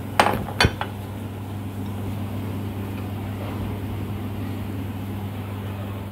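Two sharp knocks of glass on a hard surface in the first second, as the glass milk jug is set down beside the glass bowl, then a steady low hum while bread soaked in milk is kneaded by hand.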